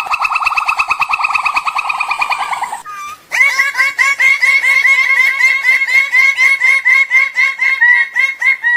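Bird calls: a fast run of repeated notes for nearly three seconds, then after a short break another series of repeated notes, about four a second, running on.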